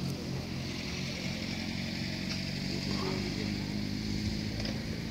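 A vehicle engine running steadily, a low even hum that holds its pitch.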